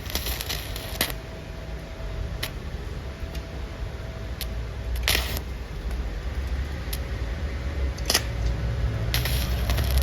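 Scattered sharp clicks and light knocks of things being handled, about six spread out with one slightly longer rattle midway, over a steady low rumble.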